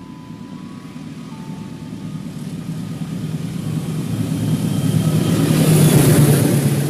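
Diesel-electric locomotive hauling a passenger train, approaching and passing close by: a steady low engine drone under a rush of wheel and track noise that grows steadily louder, loudest about six seconds in as the coaches go past, then begins to fade.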